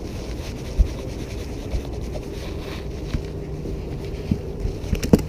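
Wind rumbling on the microphone aboard a small fishing boat, over a faint steady motor hum, with a few short knocks, the sharpest near the end.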